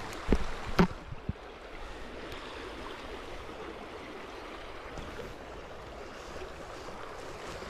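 Creek water running over a shallow riffle, a steady wash of noise. A few short knocks and bumps come in the first second or so.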